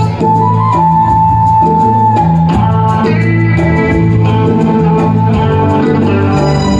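Live band playing an instrumental passage: bass guitar notes under electric guitar and keyboard, with a steady beat. A long held high note fades out about two seconds in.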